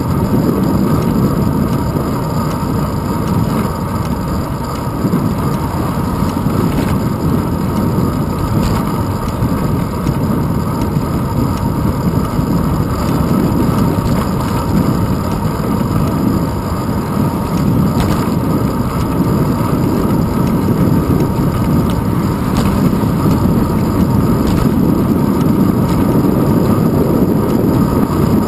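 Steady rumble of wind and road vibration picked up by a handlebar-mounted GoPro Hero 2 on a bicycle rolling along asphalt, with a few faint clicks.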